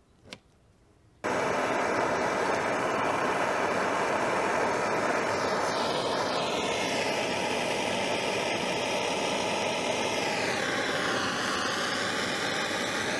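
Handheld propane torch lit about a second in, then burning with a steady loud hiss as it heats a copper pipe coupling for sweat-soldering. Its tone shifts in the second half.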